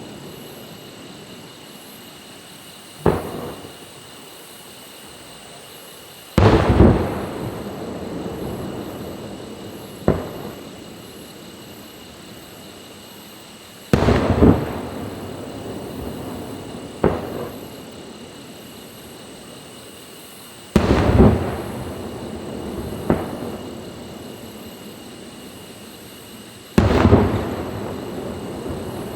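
Fireworks shells bursting: a sharp single bang and then a heavier burst, alternating about every three and a half seconds, eight reports in all. Each heavy burst trails off in a long rumble.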